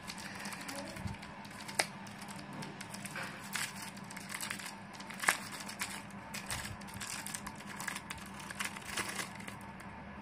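Thin clear plastic packet crinkling and crackling as fingers open and handle it, with two sharper clicks about two and five seconds in, over a faint steady hum.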